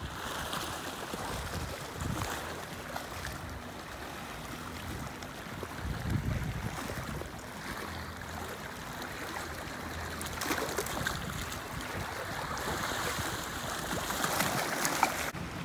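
Small waves lapping and washing against a rocky shoreline, a steady rush of water that swells louder now and then.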